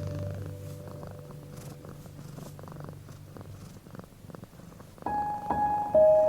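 A cat purring under soft piano music: piano notes fade away in the first second, the purring carries on alone, and new piano notes come in about five seconds in.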